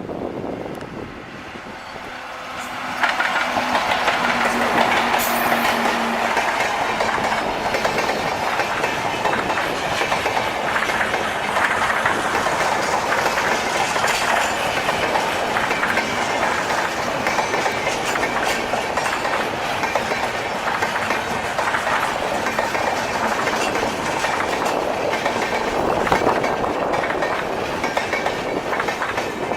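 UDAY Express double-decker train running on the track, its wheels clicking over the rail joints. The noise rises sharply about three seconds in and then stays loud and steady.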